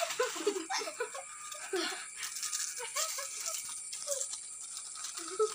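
Crinkling and rustling of Lay's potato chip packets as chips are pulled out of them, in many short crackles.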